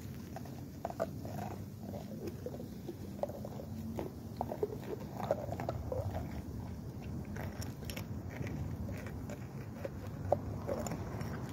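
A dog biting and chewing ice and crusted snow off the ground: irregular crunches and crackles, with one sharper crack about ten seconds in.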